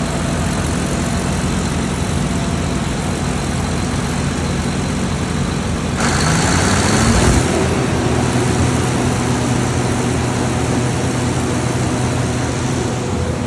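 Generator engine running steadily. About six seconds in, a rushing hiss comes in and a tone climbs in pitch for about a second, then the engine runs on at a steady note.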